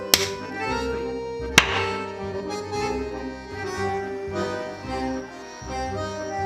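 Two sharp pops of a large plastic PET water bottle flexing under the hand, about a second and a half apart, over background music.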